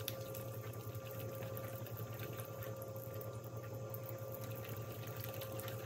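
A steady hum with a faint higher tone over it, beneath the soft sloshing and light ticking of a wire whisk beating pancake batter in a glass bowl.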